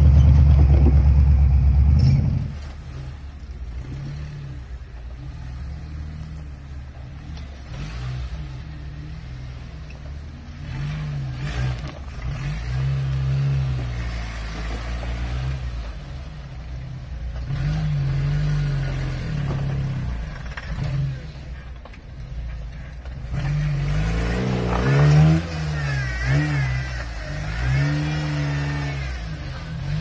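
A Jeep Wrangler's engine revs in short, repeated surges that rise and fall as it crawls slowly over large rocks. Higher wavering squeals join in during the last few seconds.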